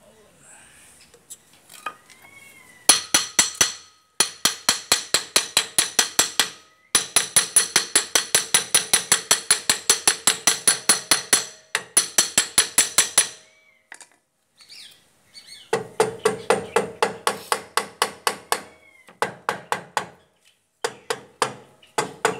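Rapid hammer blows on the rear brake drum of a Bajaj three-wheeler, about five or six strikes a second, with the drum ringing after each. The blows come in several runs broken by short pauses.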